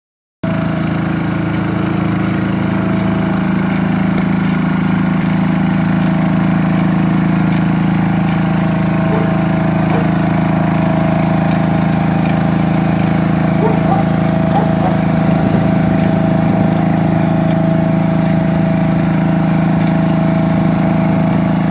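Engine of a ride-on weed-cleaning machine for paving-stone joints running at a steady, even speed while its rotating tine head works weeds out from between the pavers.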